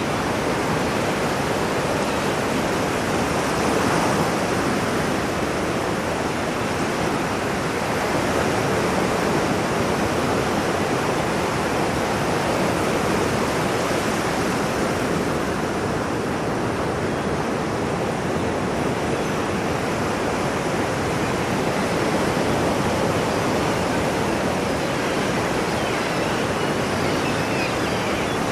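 Ocean waves breaking and washing on a shore, a continuous rushing surf with gentle swells in loudness every few seconds.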